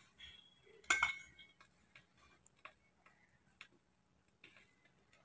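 A metal spoon clinks against a small steel bowl about a second in and rings briefly, among faint scattered ticks and clicks as fish is basted on a charcoal grill.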